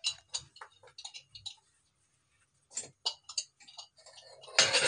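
Scattered light clicks and taps of kitchen handling around a pan on a gas stove, with a louder clatter near the end.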